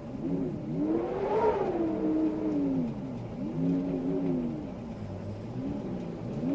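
Wind howling in gusts, its moaning pitch rising and falling in slow swells, the strongest peaking about a second and a half in.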